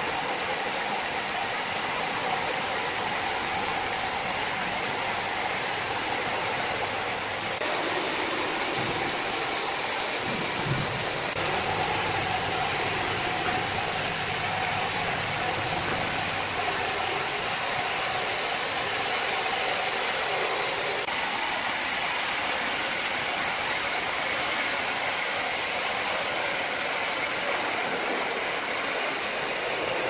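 A large horizontal band sawmill running, with its carriage travelling along the rails through a big log: a steady, dense machine noise of motors and blade. The sound shifts abruptly a few times.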